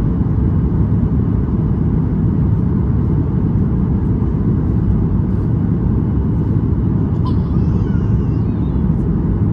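Steady low roar of a Boeing 737 MAX 8 in flight, heard inside the passenger cabin: CFM LEAP-1B engine noise and airflow over the fuselage.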